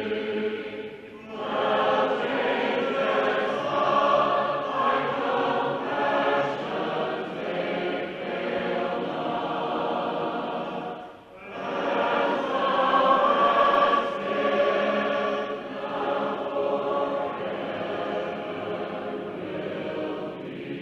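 A choir singing, with short breaks in the sound about a second in and about eleven seconds in.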